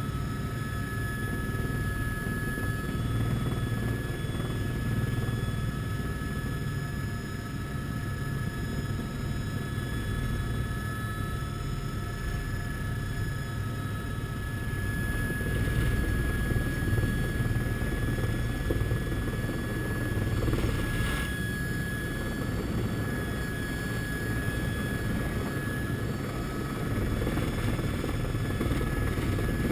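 Helicopter in flight heard from inside the cabin: a steady low rotor rumble with a steady high whine over it.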